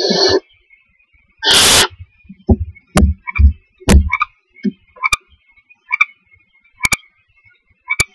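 Barn owl owlets in a wooden nest box: one short hissing screech about a second and a half in, then a run of irregular low thumps and sharp clicks as the chicks shuffle and scrabble against the box floor and walls.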